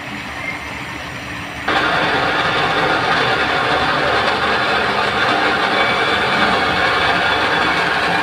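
An engine running steadily at a drilling rig site, a continuous machine drone that gets louder and brighter about two seconds in.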